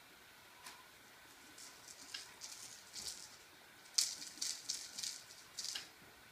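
A small cat toy rattling and clicking on a tile floor as a kitten bats and pounces on it. There is one click early, then irregular bursts of rattling, the loudest just before two-thirds through.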